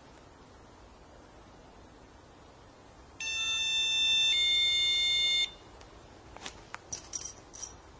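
Electronic alarm of a ghost-hunting motion sensor going off: a steady tone for about two seconds that changes pitch once partway through, then stops. A few faint clicks and taps follow near the end.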